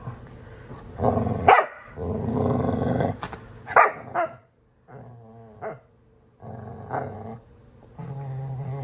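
Two dogs play-fighting: a string of growls, broken by a few short sharp barks, and a steady low growl near the end.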